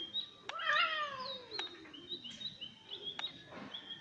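Cat yowling at a monkey: one long drawn-out call about a second in, sliding steadily down in pitch. Birds chirp in the background throughout.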